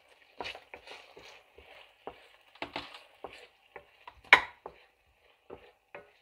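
Wooden spoon stirring chopped onions in oil in a nonstick frying pan: irregular scrapes and knocks of the spoon against the pan, the loudest about four seconds in, over a faint sizzle of the onions frying.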